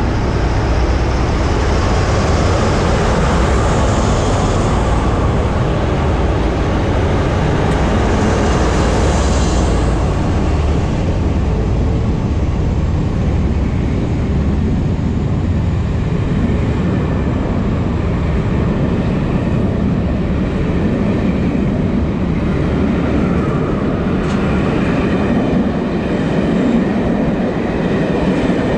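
Two Class 47 diesel locomotives with Sulzer twelve-cylinder engines pulling a train away under power, exhaust smoking, followed by the carriages rolling past with a steady rumble.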